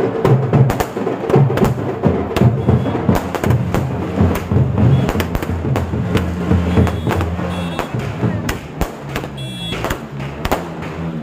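Firecrackers going off among a crowd, a rapid, irregular run of sharp bangs, over loud music with a drumbeat.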